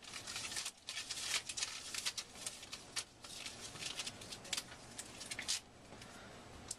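A strip of printed receipt paper rustling and crinkling as it is handled and torn apart into separate slips: a quick run of crisp paper sounds that thins out about five and a half seconds in.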